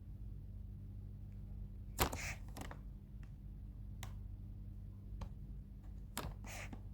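A pet cockatiel's sharp taps and knocks, about five of them, the loudest about two seconds in. Each of the two loudest is followed by a short rustling or hissing noise. A low steady hum sits under it all.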